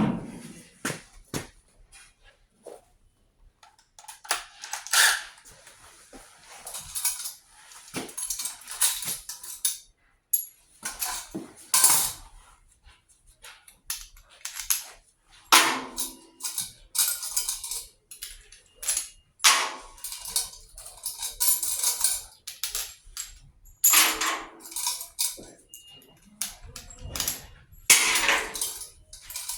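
Irregular clatter and knocks from tools and hardware being handled, in short noisy bursts a second or two apart, with no steady drilling.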